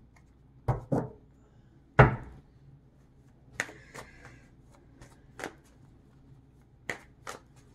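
A deck of tarot cards being handled and shuffled by hand: a few sharp knocks in the first two seconds, the loudest about two seconds in, then lighter card snaps and a brief riffle-like rustle near four seconds.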